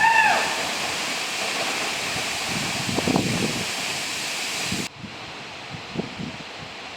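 Steady rushing of a large waterfall, with a short rising-and-falling call at the very start. About five seconds in it cuts off abruptly to a quieter scene with soft rustling and a few light knocks.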